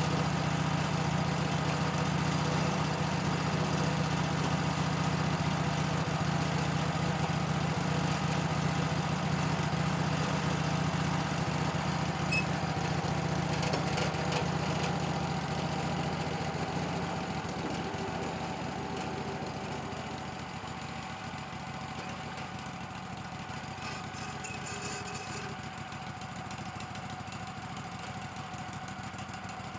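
Wood-Mizer LT-15 portable band sawmill running as it saws a small spruce log, a steady engine-like drone. The sound drops off and grows quieter about two-thirds of the way in, with a lighter steady hum after that.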